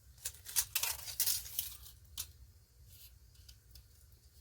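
A few short crackling, rustling strokes from handling a stick-on LED light strip and its backing in the first two seconds, then only a faint low hum.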